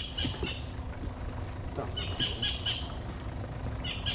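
A bird calling in short runs of three or four quick, high chirps, three times, over a steady low rumble. Anglers take this bird's calling as the sign that the tide is starting to ebb.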